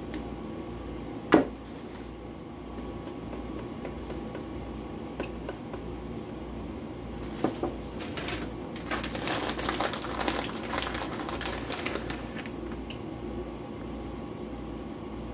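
A plastic bag of shredded cheese crinkling and rustling as it is opened and handled, for several seconds in the second half. A single sharp knock comes about a second in, over a steady low hum.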